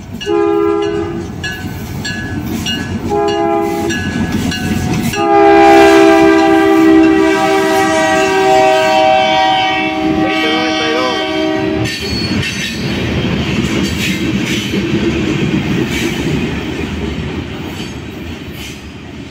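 EMD diesel freight locomotive's air horn sounding at a grade crossing: two short blasts, then one long held blast of about seven seconds. After it stops, the locomotives and loaded covered hopper cars rumble past, with wheels clacking over the rail joints.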